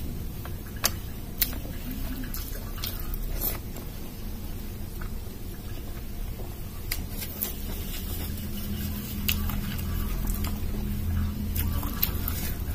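Close-up eating sounds of dal and rice eaten by hand: wet chewing and lip smacks, with a few sharp clicks scattered through. Early on, fingers gather the last rice from a steel plate.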